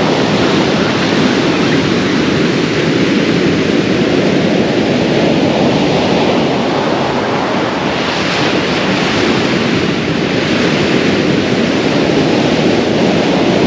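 Surf breaking and washing up a shingle beach in a steady rush, with wind buffeting the microphone. The hiss of the wash rises about eight seconds in.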